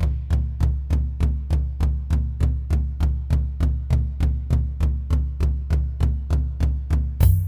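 Nord Drum 3P electronic drum synthesizer playing a sequenced drum pattern: steady, evenly spaced low drum hits about five a second, each with a light tick on top. A bright cymbal-like crash comes in near the end.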